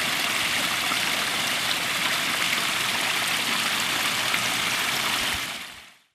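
Steady rush of running water, fading out near the end.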